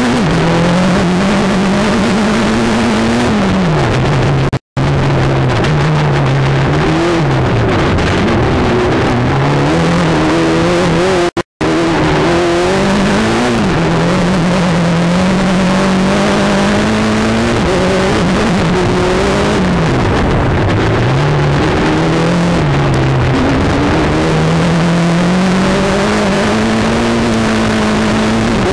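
Mitsubishi Evo engine of an off-road racing sedan, heard from inside the car, revving up and dropping back again and again as it is driven hard through the gears of its sequential gearbox, over steady road noise. The sound cuts out completely for a moment twice.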